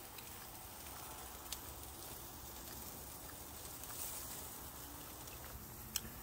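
Faint, steady outdoor hiss with a few light sharp clicks, the clearest one near the end.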